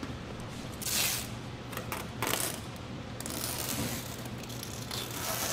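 Strapping tape being pulled off its roll in several rasping rips and pressed across an aircraft engine cowling to pull its edges together, the longest rip about three seconds in.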